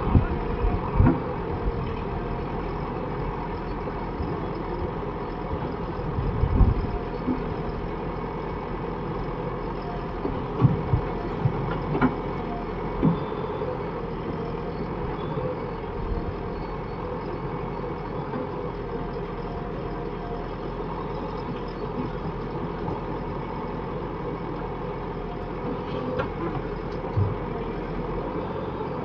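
Heavy diesel engine of earth-moving machinery running steadily, with a few short thuds, the loudest about six and a half seconds in.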